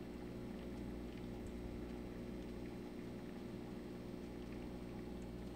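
Steady low electrical hum with faint room noise; no distinct event stands out.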